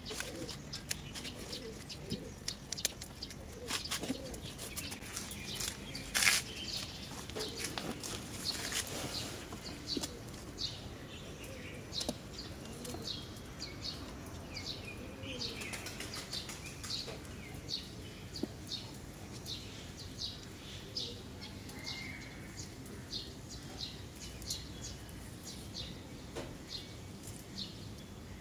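Birds chirping in short high notes, one or two a second, over the snips of hand pruning shears and the rustle of plant stems being handled. The loudest sound is a single sharp click about six seconds in.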